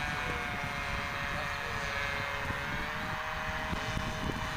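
Radio-controlled model Cessna 182 flying overhead, its motor and propeller giving a steady distant drone whose pitch shifts slightly. A low rumbling noise runs underneath.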